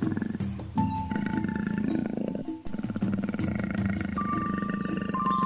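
A leopard growling and roaring in rough, continuous bouts, with a short break about two and a half seconds in. Steady musical tones sound over it.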